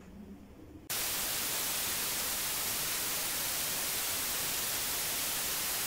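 Faint background for about a second, then a loud, steady hiss of analog TV static cuts in abruptly, used as an end-of-video sound effect.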